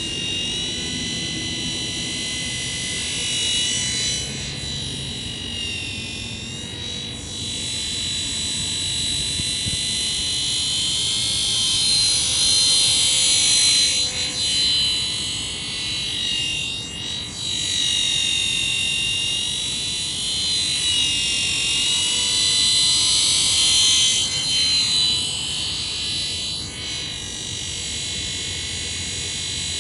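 Helimax Blackhawk RC scale helicopter in flight: a high-pitched motor and rotor whine whose pitch wavers and whose loudness swells and fades as the helicopter moves about the sky.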